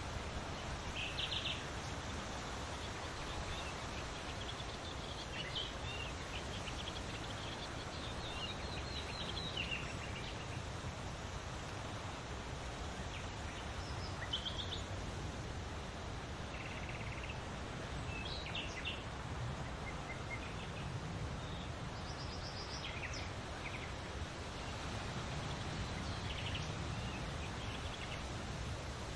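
Songbirds chirping and calling in short scattered bursts over a steady rustle of leaves in the wind.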